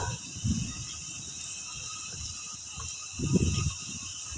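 Insects chirring steadily in a high, even drone, with low dull thumps of wind or handling on the microphone, the loudest about three seconds in.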